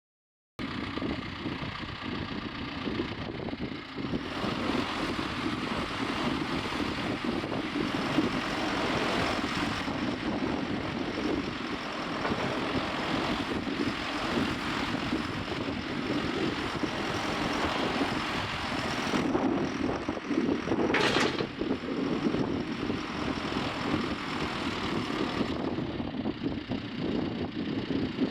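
John Deere 410L loader backhoe's diesel engine running steadily, with a short higher-pitched whine about three quarters of the way through.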